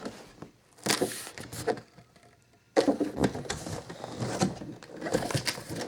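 Handling noise: a couple of knocks, a short pause, then a busy stretch of clicks, scrapes and rustling as objects are moved near the microphone.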